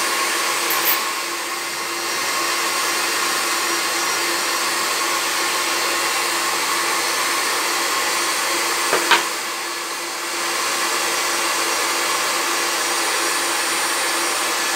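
Hair dryer blowing steadily with a constant hum while a puppy's coat is dried and combed, dipping briefly in level twice; a short click about nine seconds in.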